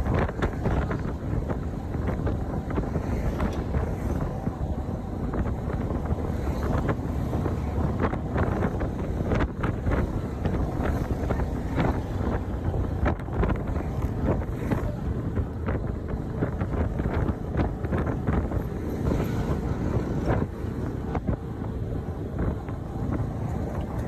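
Wind buffeting the microphone on an open moving vehicle, over a steady low rumble of engine and road noise.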